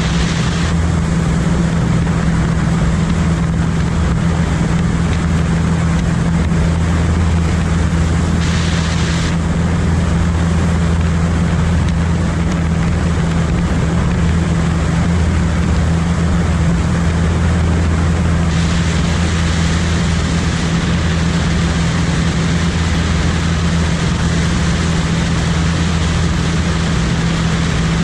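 Steady drone of a propeller aircraft in flight: a constant low hum made of two steady low tones under an even hiss.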